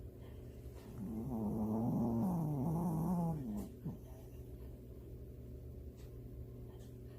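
Snoring during sleep: one long snore with a wavering pitch, starting about a second in and lasting about two and a half seconds, over a faint steady low hum.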